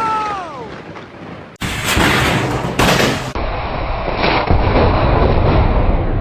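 Close lightning thunder: a loud crack about a second and a half in, then a continuous heavy rumble.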